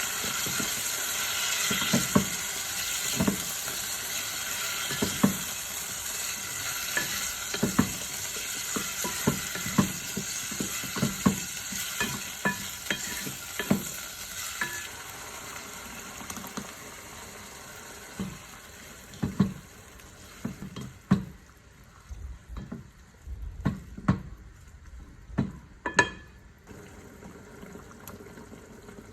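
Food sizzling in hot oil in a pot while a spoon stirs it, knocking against the pot many times at irregular intervals. The sizzle dies down over the second half.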